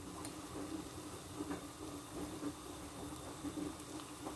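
Pot of soup at a rolling boil, bubbling faintly with small pops, over a steady low hum.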